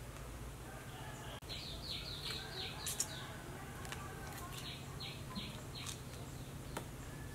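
A bird calling in two quick runs of short, high, falling notes, the first about a second and a half in and the second a little after the middle, over a low steady background hum.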